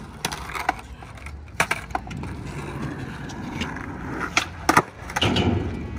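Skateboard wheels rolling over concrete, with several sharp clacks and clicks along the way and a louder stretch of rolling about five seconds in.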